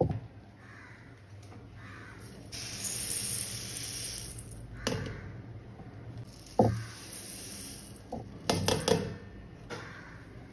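Dry grains, urad dal and idly rice, poured into a stainless steel vessel: a hissing patter for about two seconds. It is followed by several sharp knocks, loudest about two-thirds of the way through.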